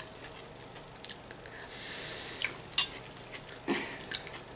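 Close-up eating sounds: chewing of stewed broccoli and cucumber-tomato salad, with a few sharp clicks of a plastic fork on the plate, the loudest about three seconds in.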